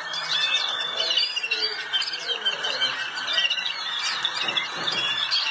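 Malinois Waterslager canaries singing, several at once, in rapid overlapping trills and rolls over a steady background noise.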